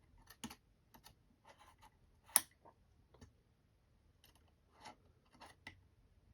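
Small clicks and scrapes of screws and a hand driver being worked on a drone frame as the screws are tightened, with one sharper click a little over two seconds in.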